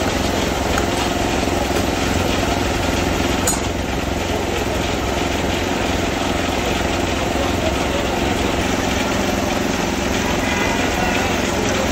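A small engine running steadily under street noise, with one sharp click about three and a half seconds in.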